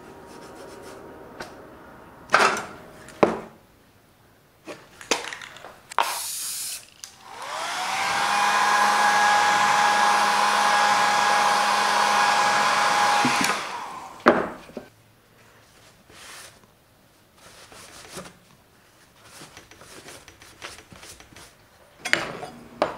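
An electric power tool's motor spinning up, running steadily for about six seconds and winding down, with a hiss of air over its hum. Scattered knocks and clicks of the aluminium badge being handled come before and after it.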